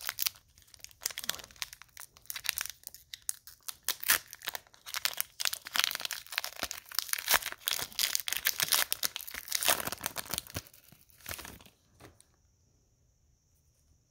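Foil wrapper of a Pokémon TCG booster pack being crinkled and torn open by hand: a long run of crackling and ripping that stops about two seconds before the end.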